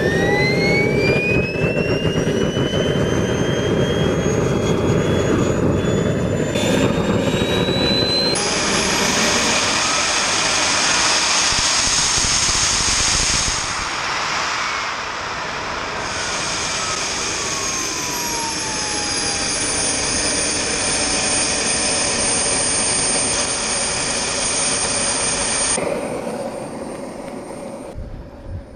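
Small factory-built model-aircraft turbojet of about 8 kg thrust starting up: a high whine rises steadily for the first several seconds as it spools up. It then runs with a loud jet roar and hiss, and past the halfway point its whine glides down and settles to a steady idle.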